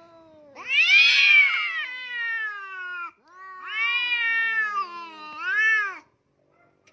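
Domestic cats yowling at each other in a territorial standoff: three long, wavering caterwauls, the first the loudest and the last short, rising then falling.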